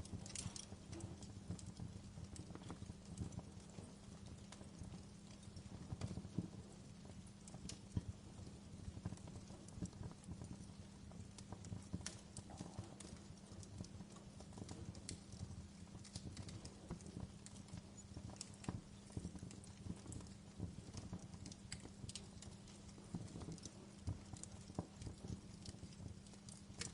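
Wood fire crackling, with irregular small pops and snaps over a low, steady rumble.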